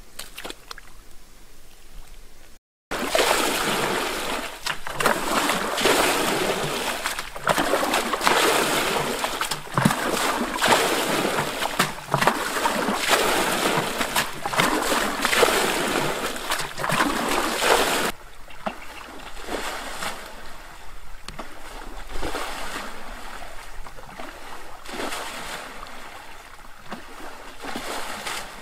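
Muddy pond water splashing and sloshing as a man wades in it and bails it out with a bucket. The splashing is loud and continuous after a brief dropout about three seconds in, and it turns quieter and more broken from about eighteen seconds.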